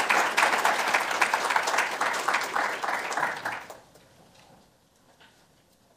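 Audience applauding, dying away about three and a half seconds in and leaving near silence with a few faint clicks.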